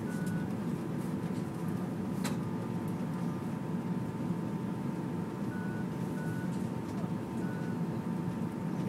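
Steady low rumble of the Flytoget airport express train running at speed, heard inside the passenger cabin, with a thin steady whine over it. There is a single sharp click about two seconds in.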